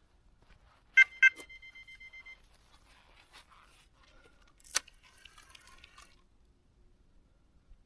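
Two quick metallic clinks about a quarter-second apart, ringing on briefly like a small bell, followed a few seconds later by a single sharp click.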